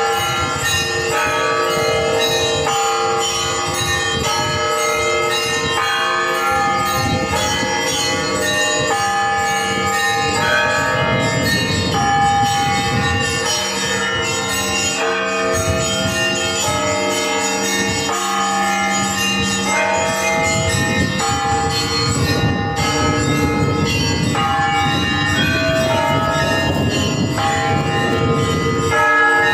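Bell ringing: several bells of different pitches struck in a quick, steady pattern, their tones overlapping into one continuous peal.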